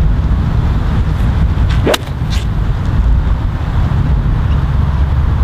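Strong wind buffeting the microphone, with one golf iron swing about two seconds in: a quick rising swish that ends in a sharp click as the clubface strikes the ball.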